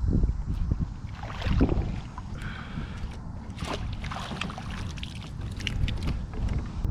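Wind buffeting the microphone as a steady low rumble, with scattered light knocks and rustles from handling on the kayak.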